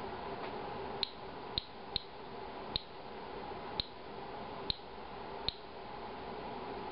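Inspector Alert Geiger counter clicking, each click a short high chirp, seven at irregular intervals about a second apart. Each click is one detected count of ionizing radiation, a slow rate near background level.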